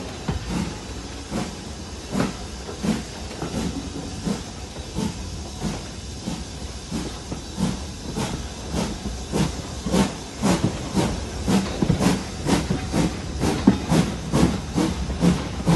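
Steam locomotive exhaust chuffing in an even beat that quickens to about two beats a second as the train gathers speed, over a steady low rumble of the train running.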